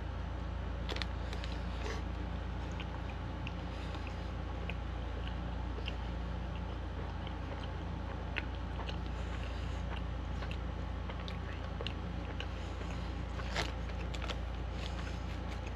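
A person biting into and chewing a mouthful of a Taco Bell five-layer burrito close to the microphone: soft mouth sounds with scattered small clicks over a steady low hum.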